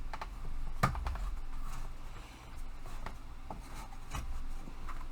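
Thin wooden panels of a flat-pack hobby tool rack being handled and pushed together: scattered light clicks, knocks and rubbing, with one sharper knock about a second in.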